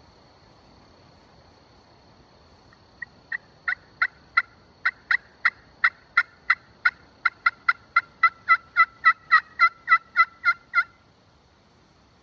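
A bird calling a long series of short, sharp notes that speed up and grow louder, beginning about three seconds in and breaking off near the end.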